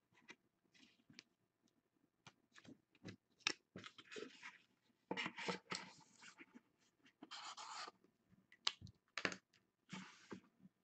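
Cardboard card boxes and plastic graded-card slabs being handled: scattered light clicks and several short scraping rubs of cardboard sliding against cardboard.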